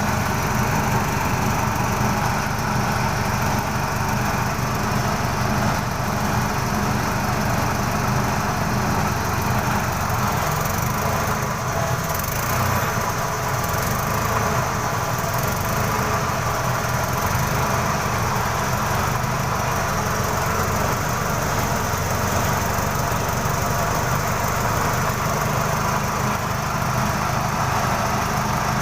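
A forklift's H20 four-cylinder gasoline engine running steadily at an even speed. The engine has a hard-starting fault and dies unless the gas pedal is held, traced to a loose connection at the idle control.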